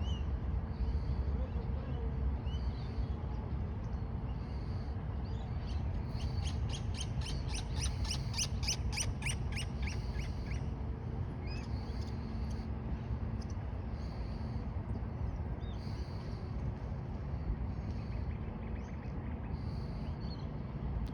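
Outdoor ambience with a steady low rumble and birds calling: short high chirps repeated every second or so, and a fast run of sharp, evenly spaced notes, about five a second, from about six to ten seconds in.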